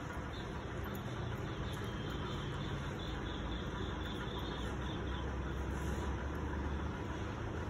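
Steady low rumble with a constant hiss over it, with no distinct knocks or clicks; the rumble swells a little past the middle.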